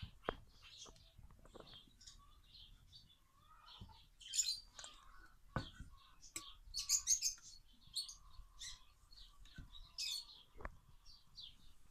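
Small birds chirping repeatedly in short high calls, with a few sharp taps in between.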